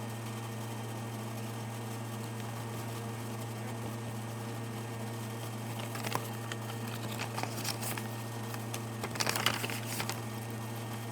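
Steady low electrical-sounding hum throughout, with scattered light clicks and rustling about six seconds in and a louder cluster of rustles and clicks near the end, like objects and paper being handled.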